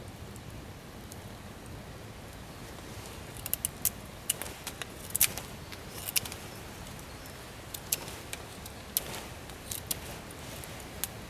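Fixed-blade bushcraft knife shaving a wooden stick: about a dozen short, crisp snicks of the blade biting the wood, starting a few seconds in, over a steady low background noise.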